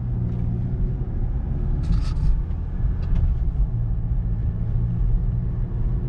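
Cabin sound of a 2018 VW GTI driving: steady low engine and road rumble, with a brief click or rattle about two seconds in. The suspension squeak is absent; the parking brake lines have just been tied away from the rear brace.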